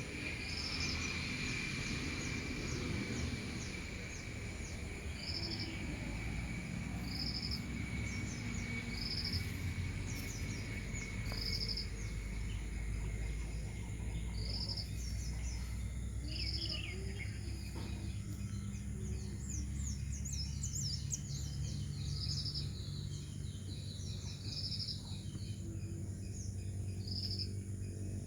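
Early-morning outdoor ambience. A short, high chirp repeats about every two seconds throughout, with scattered bird chirps about two-thirds of the way in, over a steady low rumble.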